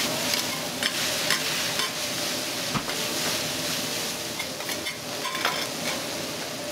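Shredded cabbage and meat sizzling on a flat iron griddle as they are tossed with two metal spatulas. Scattered clicks and scrapes come from the spatulas striking the iron plate over a steady frying hiss.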